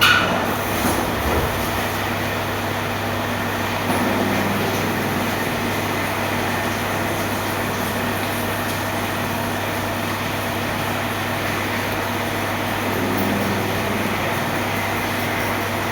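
A machine running steadily with a constant low hum. A brief sharp, high sound at the very start fades within about half a second.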